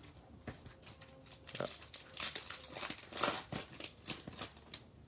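Plastic wrappers of Topps baseball card packs crinkling as they are handled, in short scattered rustles.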